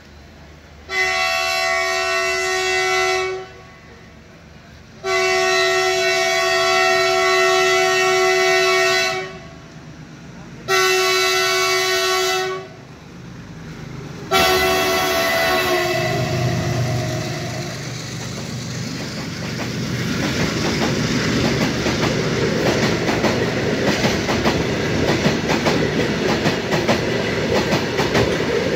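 Diesel locomotive's air horn sounding four long blasts, the last one shorter, as the locomotive approaches on the adjacent track. Then its engine rumbles past and a freight train of covered wagons runs by close up with a steady rattle and clickety-clack of wheels over the rail joints.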